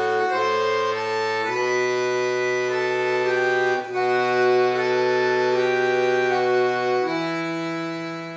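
Accordion playing sustained chords of a Russian folk-song arrangement, with a brief break in the sound about four seconds in, then settling on a long held final chord that begins to fade at the very end.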